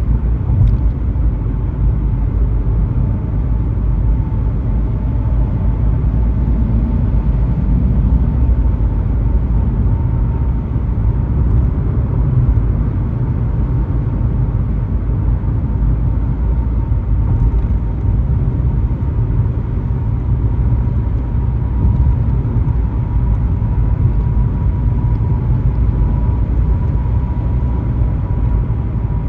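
Car driving on a highway: a steady low rumble of engine and road noise, with a faint steady whine.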